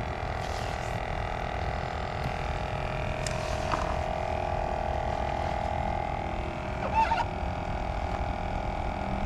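Steady electric hum of a small motor, with a brief pitched sound about seven seconds in.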